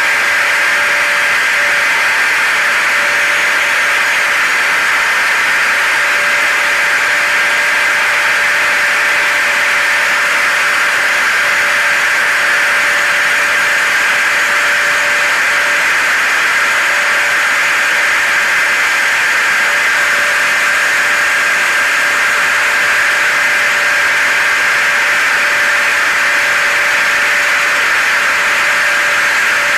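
Hair dryer and vacuum cleaner running together as a steady white-noise drone: a constant airy rush with a fixed motor whine and a lower hum on top, unchanging throughout.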